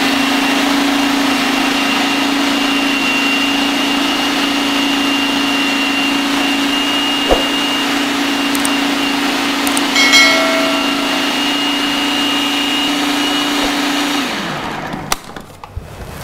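Food processor motor running at a steady high speed, blending carrot and apple juicer pulp into a crust mixture; near the end it is switched off and winds down.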